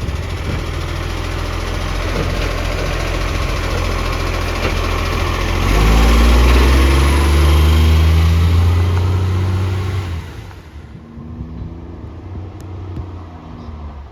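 Garbage truck engine running with a loud exhaust leak, revving harder and growing louder about six seconds in, then dropping away sharply about ten seconds in.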